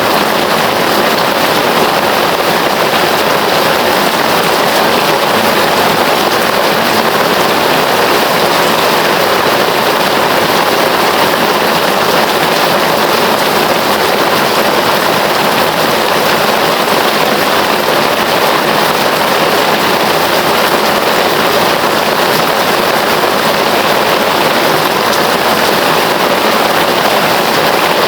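Heavy rain falling, a steady, dense hiss without any let-up.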